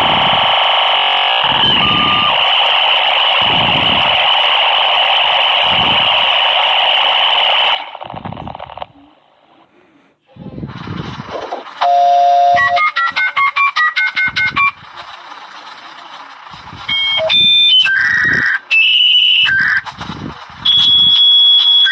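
Dial-up modem sounds: a modem's harsh handshake screech that cuts off after several seconds. After a short pause comes a quick run of touch-tone dialing beeps, then the steady answer and handshake tones of a new connection starting.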